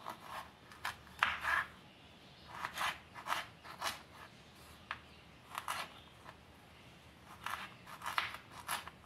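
Kitchen knife chopping peeled ginger into small pieces on a wooden cutting board: irregular sharp cuts, some in quick runs, with short pauses between.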